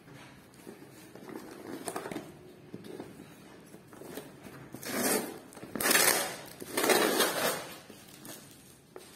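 Scissors and hands working the packing tape on a taped cardboard box, cutting it and pulling it away. Light rustling and scraping at first, then three louder scraping noises in the second half, the middle one the loudest.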